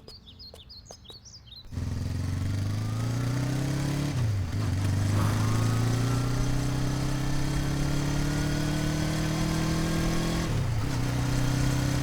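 A few faint bird chirps, then from about two seconds in a motorcycle engine running under acceleration, its pitch slowly climbing. The pitch drops back and climbs again twice, once around four seconds and once near the end.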